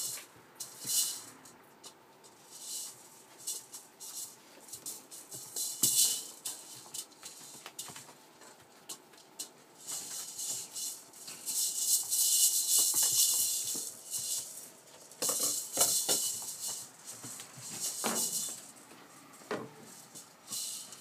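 Rough collie puppies scampering and tussling over floor sheets and toys: repeated crinkly rustling and scratching of paws, with a longer stretch of continuous rustling from about eleven to fourteen seconds in and a few thumps near the end.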